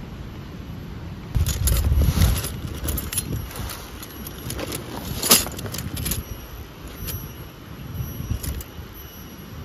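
Metal tent pegs clinking and jangling as a hand rummages through a nylon gear bag, with rustling handling noise about a second in and a sharp metallic clink about five seconds in.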